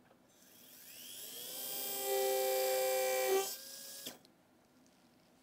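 Surgical implant motor and contra-angle handpiece turning a tissue punch at 1500 rpm: a whine that rises in pitch as it spins up over about a second and a half, runs steadily, then drops and stops just after four seconds in.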